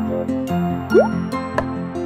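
Light children's background music, with a quick rising cartoon "bloop" sound effect about a second in, the loudest moment, as a shape drops from the flying saucer.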